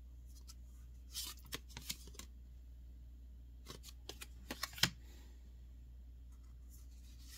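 Trading cards being slid and flicked through the hands, giving short papery snaps and rustles in two bursts, about a second in and again around four seconds in.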